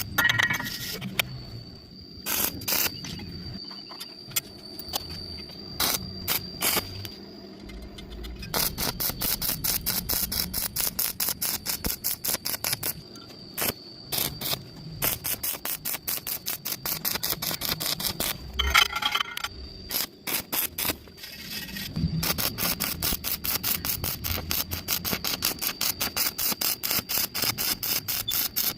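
Electric arc welding on angle iron: the arc crackles in quick, evenly spaced pulses, several a second, as the weld is stitched across a wide gap, with a steady high whine underneath and a few short breaks.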